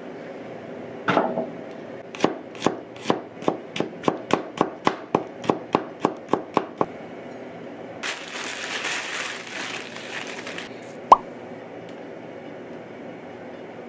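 A kitchen knife chopping garlic cloves on a cutting board: a knock about a second in, then about fifteen quick strokes that come faster as they go. Then a few seconds of crinkling plastic bag and a single sharp click near the end.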